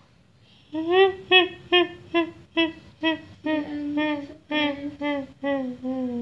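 A person's voice humming a slow tune in about a dozen short, separate notes, fairly high-pitched, with the last few notes held longer and sinking lower. It is meant as an eerie 'ghost' voice in the dark.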